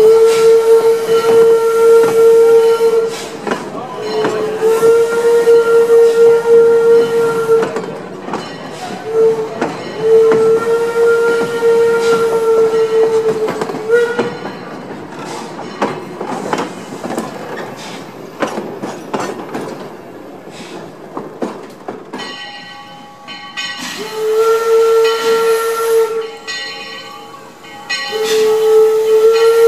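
Baldwin steam locomotive's whistle, one steady tone, blowing the grade-crossing signal of long, long, short, long, while the passenger cars roll by with clicking wheels over the rail joints. Later the whistle gives two more long blasts.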